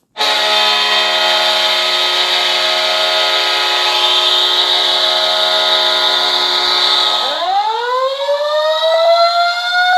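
Hockey goal horn: a loud, steady horn chord of several notes. About seven seconds in it gives way to a siren winding up, its pitch rising and then levelling off.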